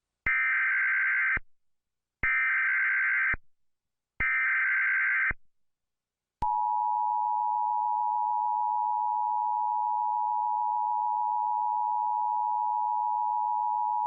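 Mock Emergency Alert System alert tones: three one-second bursts of digital SAME header data about two seconds apart, then, about six seconds in, the steady two-tone EAS attention signal.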